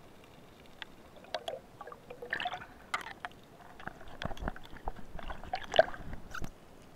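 Irregular clicks and knocks heard underwater as a speared fish is handled on the spear shaft and line, the loudest knock near the end.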